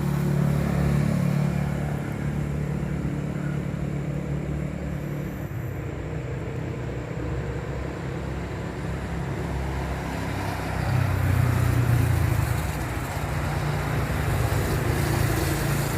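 Steady low rumble of motor traffic, swelling about eleven seconds in.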